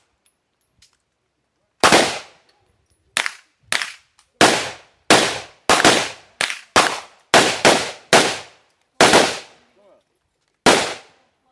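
A firearm fired semi-automatically in an uneven rapid string of about fourteen shots, some coming in close pairs, with a gap of about a second and a half near the end.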